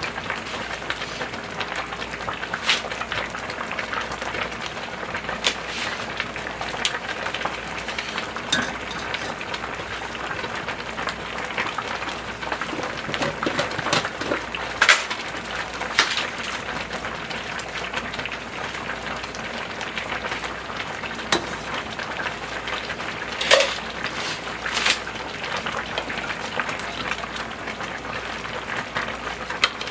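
Large stockpots of pork-bone and radish-greens stew boiling on the stove: a steady bubbling hiss with scattered sharper pops.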